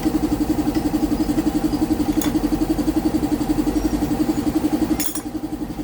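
Kawasaki Fury 125's single-cylinder engine idling steadily with a quick even pulse, just after its carburetor has been cleaned. About five seconds in there is a click and the idle briefly drops in level.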